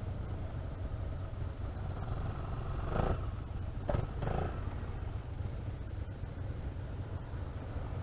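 Scooter engines idling with a low, steady rumble. Two brief, louder sounds cut in about three and four seconds in.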